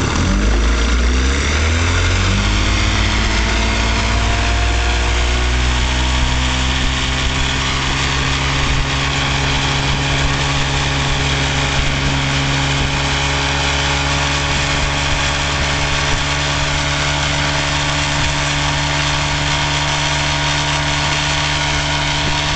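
1956 Johnson Javelin 30 hp two-cylinder two-stroke outboard opening up: its pitch climbs over the first several seconds, then holds steady at high speed. Under it runs the rush of water from the wake.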